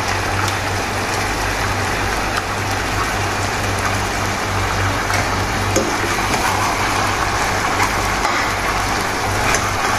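Steady rushing, hissing noise with a low hum from the stovetop as chicken pieces cook in a stainless steel pot on a gas stove.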